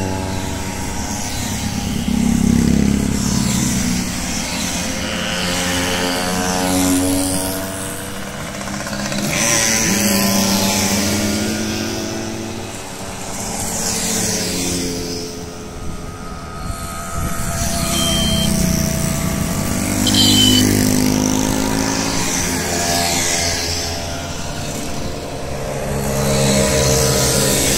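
A column of small two-stroke moped engines buzzing past one after another, each swelling and fading as it goes by, often several heard at once.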